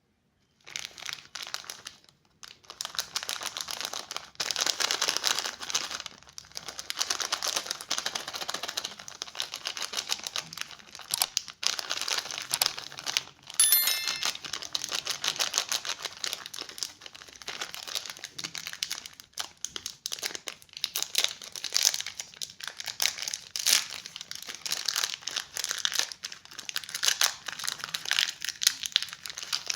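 Plastic candy wrappers crinkling and crackling as they are handled and unwrapped. It is a dense run of crisp crackles that starts just under a second in, with a brief high squeak about midway.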